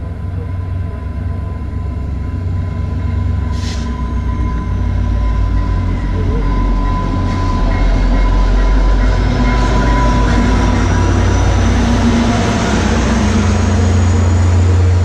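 VIA Rail passenger train pulling into the station: the diesel locomotive's deep engine rumble grows steadily louder as it approaches and passes, and the coaches roll by. A thin high squeal rises slowly in pitch through the second half.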